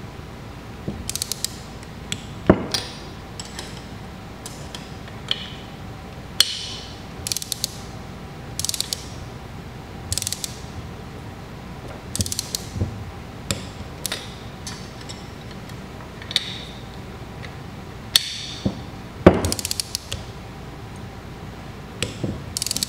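Click-type torque wrench ratcheting in short bursts of clicks, with a few sharper clicks among them, as the cross-bolt nuts of a bulls-eye sight flow indicator are tightened in stages to 5 foot-pounds to load the sight glass evenly.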